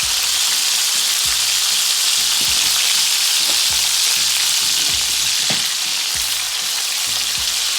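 Chicken thighs sizzling steadily as they fry slowly in butter in a pan over a low flame, with a few light knocks along the way.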